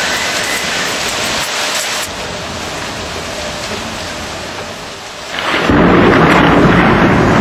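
Heavy rain hissing steadily through a thunderstorm. About five and a half seconds in, a loud rumble of thunder swells up and keeps rolling.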